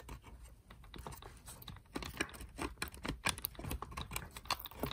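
Light, irregular clicking and rubbing of fingers working a small plastic wire connector off its pins on the vacuum's circuit board, the clicks coming more often from about two seconds in.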